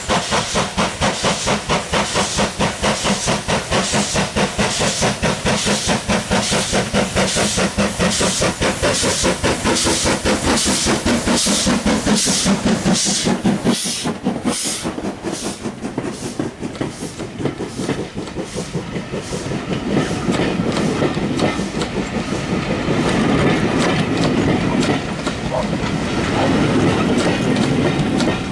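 LMS Stanier 8F 2-8-0 steam locomotive No.48624 working a train past at close range, its exhaust beating fast and evenly and growing sharper as it draws level, then fading away once it has passed. The coaches follow, their wheels rumbling and clacking over the rail joints, louder near the end.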